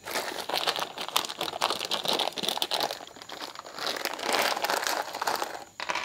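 Clear plastic bag of small screws crinkling as it is handled, in two spells with a short lull about three seconds in.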